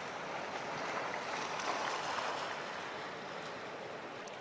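Steady wash of sea waves, easing off slightly toward the end.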